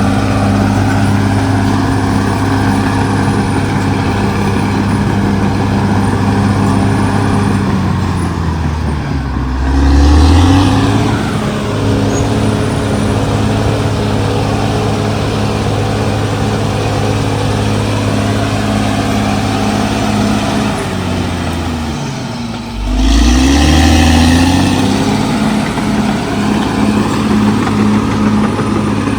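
Caterpillar D6R XL bulldozer's diesel engine running steadily at working speed. Twice, about eight seconds in and again past twenty seconds, the engine note sags and then climbs back up in a louder surge, as the engine takes on and throws off load.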